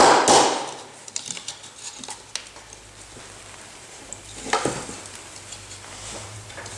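A hammer blow on a small tin plate over a wooden block, ringing briefly, then light metallic clicks and scraping as the sheet-metal piece is handled and repositioned, with one sharper tap about four and a half seconds in.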